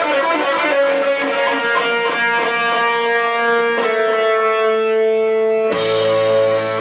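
Background music on guitar: single picked notes leading to a long held note, then a fuller chord with bass joining about six seconds in.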